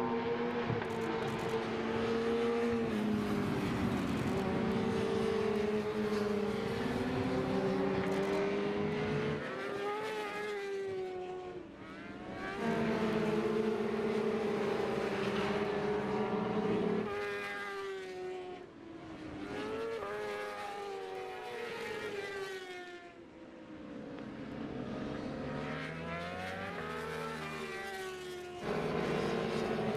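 Superbike racing motorcycle engines at race pace, revving high and dropping in pitch through gear changes, with several bikes sweeping past one after another. The sound jumps abruptly a few times.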